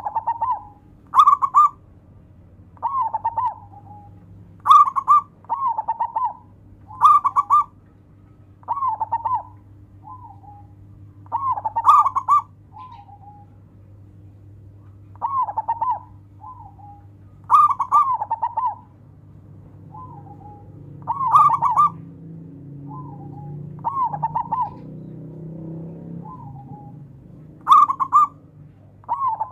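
Zebra dove (local perkutut) cooing: short phrases of rapid rolling notes repeated every one to two seconds, often with a brief trailing note after a longer phrase. A steady low hum runs underneath.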